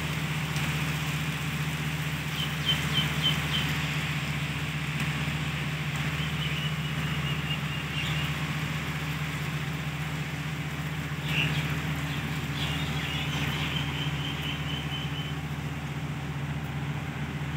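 Rain falling over a steady low engine hum, with a bird calling several times in quick chirps and short trills.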